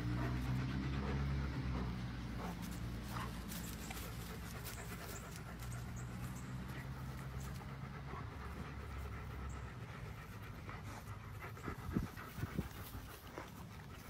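German Shepherd dog panting steadily, under a low steady hum that stops about ten seconds in. A few sharp knocks come near the end.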